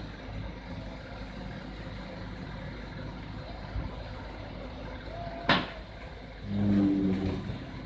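Diesel engine of heavy equipment running steadily. A sharp metallic knock comes about five and a half seconds in, and a louder pitched sound lasting about a second follows near the end.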